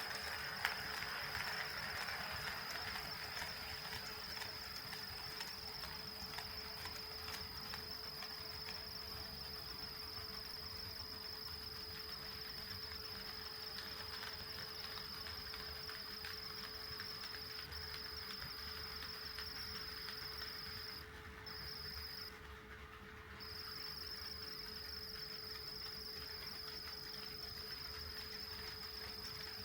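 HO-scale KATO D51 steam locomotive model running on the track, with a steady high-pitched electrical whine and a light rolling hiss. The whine cuts out briefly about two-thirds of the way through, then again for a little over a second, and comes back.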